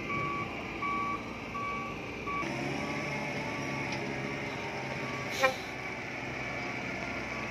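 Reversing alarm of a Terex rough-terrain crane beeping about one and a half times a second over its running engine as the crane backs up the ramps onto a lowboy trailer. A brief loud sharp sound stands out about five and a half seconds in.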